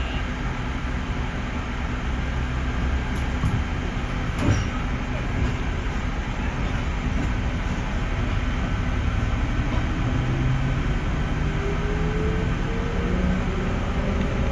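Running noise inside a 311 series electric multiple unit: a steady rumble of wheels on rail, with one knock about four and a half seconds in. From about ten seconds in, a motor whine rises steadily in pitch as the train gathers speed.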